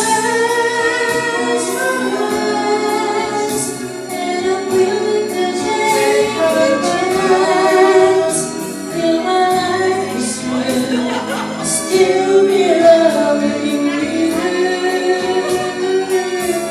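A man and a woman singing a duet into microphones over backing music with a regular beat.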